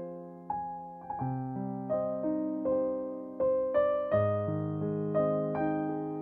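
Background music: slow, gentle piano, with single notes struck every half second to a second over held lower notes that ring and fade.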